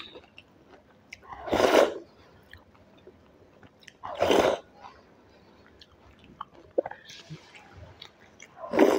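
Close-up eating sounds of yogurt-soaked dahi bhalla (lentil dumplings) eaten by hand: three loud, wet mouthfuls about two to four seconds apart, with quieter squishing and chewing between them.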